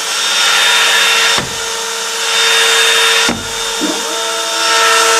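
A Makita router working as a CNC spindle, running and milling wood, with the dust extraction drawing chips through its brush dust shoe: a steady high whine over a wide cutting and suction noise. The level dips briefly about one and a half seconds in and again a little past three seconds.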